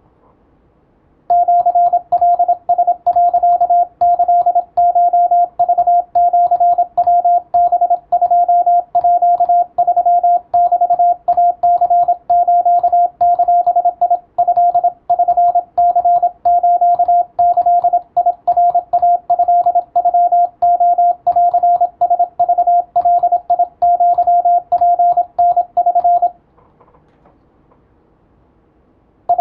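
Japanese wabun Morse code sent as a single mid-pitched beep keyed on and off in dots and dashes at a steady sending pace. The keying breaks off about three seconds before the end and starts again just as it ends.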